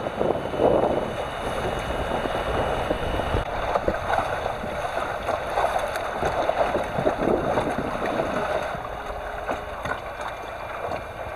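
Water rushing and splashing along the hull of a small sailboat under way, with wind buffeting the microphone.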